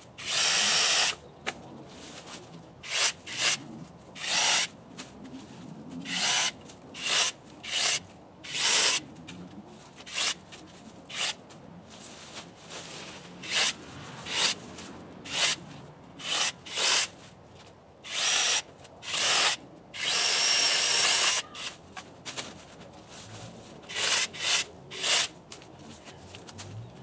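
Electric mini chainsaw cutting small branches in short bursts: about twenty quick cuts, each under a second, with two longer ones near the start and about two-thirds of the way through. Quieter rustling of branches fills the gaps.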